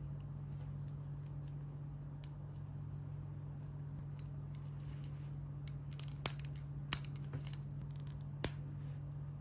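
LEGO plastic pieces clicking as they are pressed and fitted onto a small mech part: a few faint ticks, then three sharp clicks in the second half, over a steady low hum.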